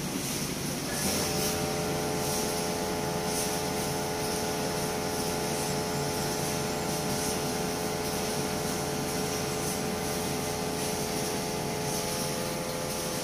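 Dump truck's electric cab-tilt pump running with a steady whine that switches on about a second in, driving the cab slowly up on its hinges.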